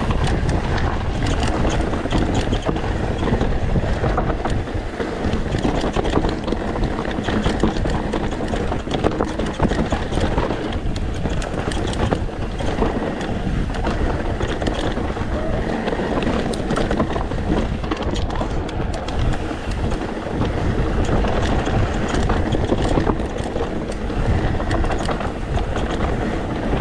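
YT Decoy mountain bike descending a rocky dirt trail at speed: steady tyre and wind noise on the microphone, shot through with constant clatter and knocks from rocks, chain and suspension.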